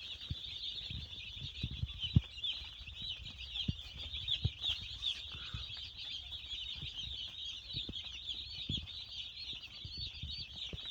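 A brood of about 200 day-old chicks peeping continuously, many high calls overlapping. Low thumps sound now and then, the loudest about two seconds in.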